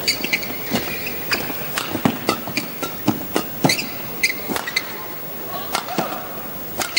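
Badminton rally: sharp cracks of rackets striking the shuttlecock and players' footwork on the court, with short high squeaks of shoes on the court floor, over the hum of a large arena crowd.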